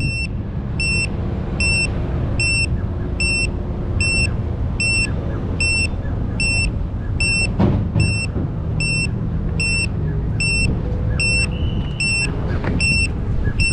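Piezo buzzer of an FPV drone beeping steadily, a short high beep about twice a second, as the drone sits on the ground: a lost-model alarm. A steady low rumble runs underneath.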